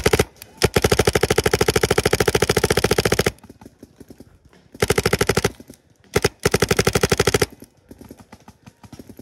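Paintball marker firing rapid strings of shots at close range: a brief burst, a long string of about three seconds, then three shorter bursts.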